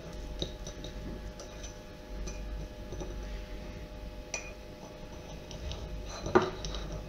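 A small kitchen knife slicing crab sticks on a ceramic plate, the blade clinking against the plate a few times, loudest near the end.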